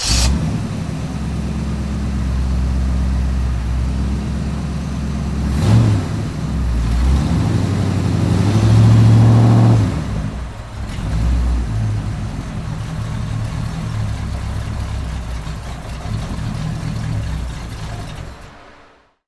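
Muscle car engine running just after it fires, idling with a short rev about six seconds in and a longer rev that rises and falls from about eight to ten seconds. It then settles back to idle and stalls, dying out near the end.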